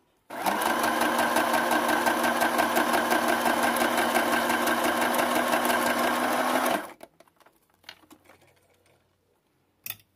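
Domestic sewing machine stitching a straight seam at a steady speed for about six and a half seconds, then stopping abruptly.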